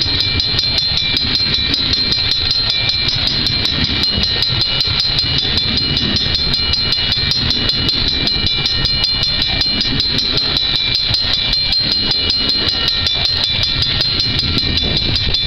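Level-crossing warning bell ringing in rapid, even strokes with a steady ringing tone, over the low rumble of loaded freight cars rolling past on the rails.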